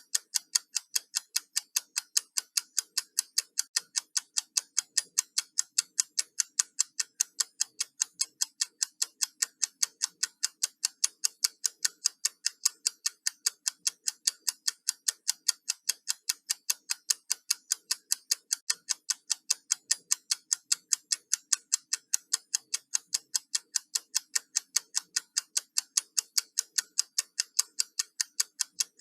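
Countdown timer ticking like a clock: crisp, even ticks at about four a second, at a steady level.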